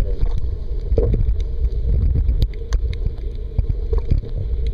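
Muffled underwater noise picked up by a waterproof camera held beneath the surface: a steady low rumble with scattered sharp clicks.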